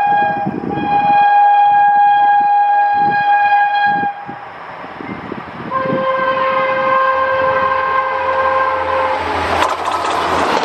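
Air horn of a WAP-5 electric locomotive sounding two long blasts at different pitches from an approaching train. About a second before the end the loud rush of the train passing at about 160 km/h takes over.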